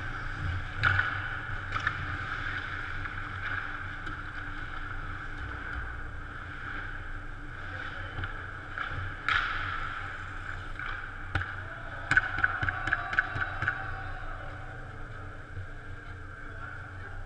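Ice hockey rink sound: a steady arena hum under the scrape of skates, with scattered sharp clacks of sticks and puck, including a quick run of about seven clacks a little past the middle.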